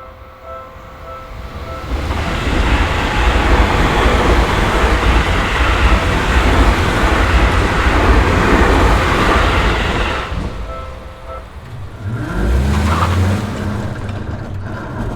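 Japanese level-crossing warning bell ringing in repeated strokes, drowned out about two seconds in by a train passing close by: loud rushing and rumbling rail noise for about eight seconds. The crossing bell is heard again briefly as the train clears, followed by a low rising engine-like hum.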